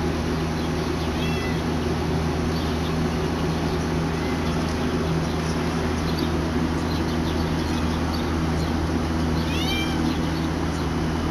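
Siamese cat giving two short, high-pitched meows, a faint one about a second in and a clearer one near the end, over a steady low hum.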